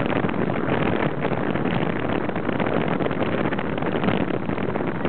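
Wind buffeting the microphone over the steady rush of a moving boat through open water, in dense, unbroken noise with no clear engine pitch.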